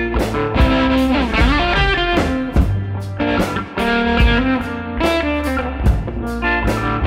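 Background music: guitar-led blues-rock with drums and a steady beat, the guitar notes bending in pitch.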